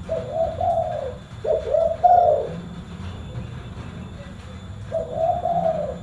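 Spotted dove cooing: a phrase of several low, rolling coos, then after a pause of about two seconds another phrase begins near the end.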